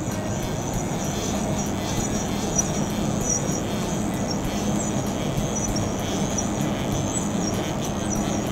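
Syil X5 CNC mill's table being jogged along one axis by its servo drive, a steady machine hum with a high whine.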